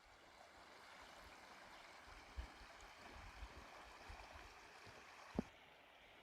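Faint, steady rush of a fast-flowing river, with a couple of soft low knocks.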